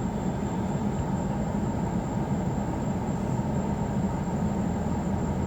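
Steady low vehicle rumble with a hiss above it, even throughout.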